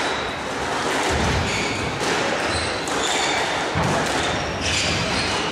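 Squash rally on a glass-walled court: a squash ball repeatedly struck by rackets and knocking off the walls and floor, over a steady background of hall noise.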